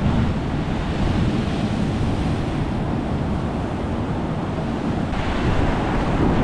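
Ocean surf surging and washing over a rocky coastal shelf, a steady churning of water, with wind buffeting the microphone.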